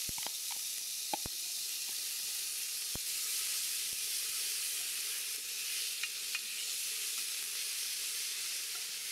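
Chopped onion sizzling in hot oil in a metal pot as it is sautéed: a steady hiss, with a few light clicks of the stirring utensil against the pot in the first second and a half and once about three seconds in.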